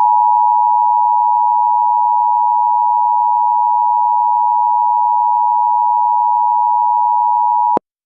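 Emergency Alert System attention signal: two steady tones sounding together just under 1 kHz (the 853 Hz and 960 Hz dual tone), loud and unbroken, cutting off sharply near the end. It is the signal that comes before a warning's voice message.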